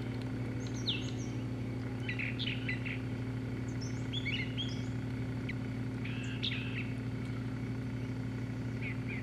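A songbird of unknown species singing its varied song: short chirping phrases of quick notes that slide down or up in pitch, one phrase every second or two. A steady low hum runs underneath.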